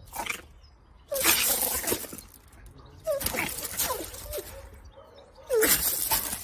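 A small animal makes four short, rough, hissing-like vocal bursts, each opening with a brief cry; the longest comes about a second in and another near the end.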